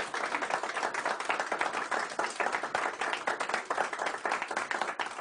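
Small audience applauding: dense, irregular hand claps.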